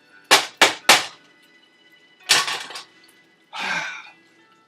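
A quick run of three sharp clatters in the kitchen, then another knock about two seconds in and a short rushing noise near the end.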